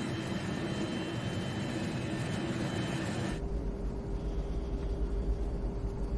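Steady jet airliner engine drone for about three seconds. It then cuts abruptly to a deep low rumble with one long held note, the start of a background music score.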